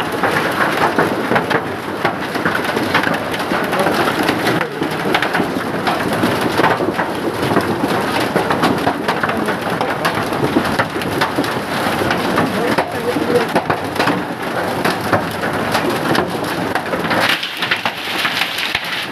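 Heavy rain pouring steadily onto hard surfaces, a dense patter of many small drop impacts.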